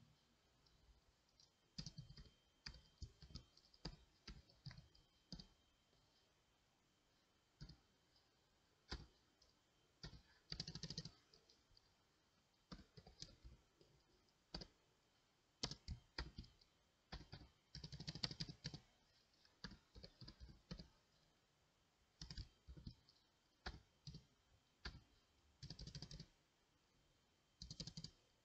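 Faint computer keyboard typing: scattered single keystrokes and several quick runs of keys, with short pauses between them.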